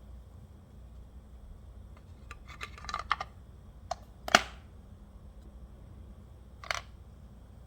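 Small sharp clicks and taps of hands working on the parts of a heating valve actuator: a quick cluster about two to three seconds in, one loudest click a little later, and another tap near the end, over a low steady hum.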